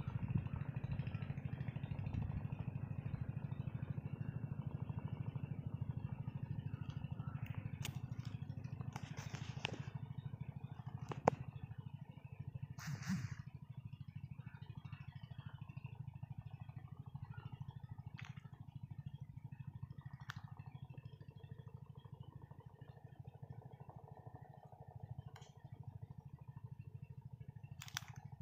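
Scattered metallic clinks and taps of a hand wrench against bolts and the cast engine crankcase as parts are tightened during assembly, over a steady low background hum.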